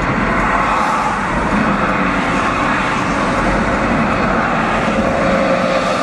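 Steady road and engine noise of a van cruising at highway speed, heard from inside the cabin.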